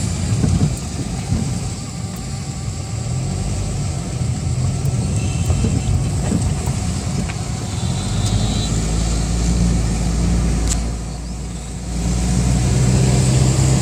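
Engine and tyre noise of a moving car heard from inside the cabin: a steady low rumble that eases briefly near the end, then picks up again.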